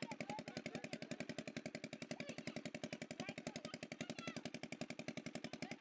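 A small engine running steadily, with a fast, even putter of about a dozen beats a second.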